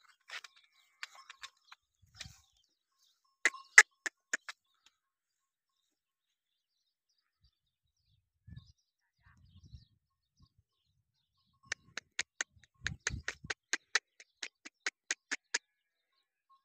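A run of sharp clicks, about four a second, with a few faint low thuds between them and long silent gaps.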